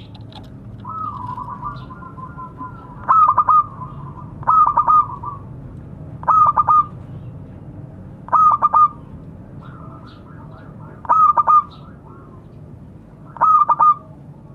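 Zebra dove (perkutut) calling: six loud phrases, each a quick run of three or four coos, coming every two seconds or so. Softer rolling coos fill the gaps between them.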